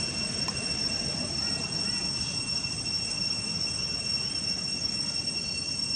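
A steady high-pitched whine of two constant tones over a low rumbling hum, with a few faint chirps.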